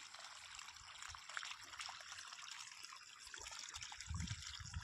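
Weak trickle of borewell irrigation water running from a pipe, with a low thud about four seconds in. The flow is thin and comes and stops in gaps, a sign that the borewells' yield has fallen.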